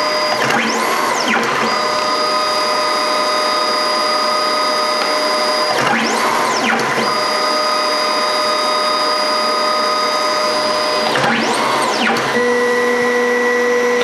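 Mitsubishi CP-M1 dye-sublimation photo printer running a print: a steady motor whine broken three times, about every five and a half seconds, by a rising-then-falling sweep as the paper is wound back between passes. Near the end the whine settles onto a different, lower pitch.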